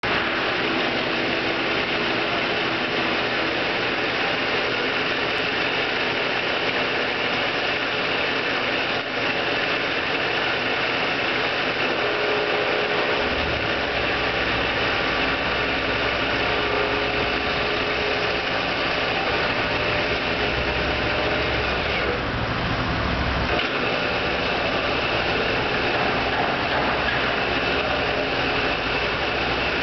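Acra Turn LC-1340G geared-head engine lathe running, giving a steady mechanical whir with a few held tones from its headstock gearing. About halfway through, a deeper low hum joins in.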